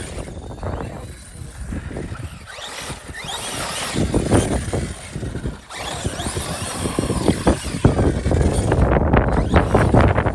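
Arma Fireteam 6S RC car's brushless motor whining as it repeatedly revs up and down under throttle, with scattered clatter mixed in.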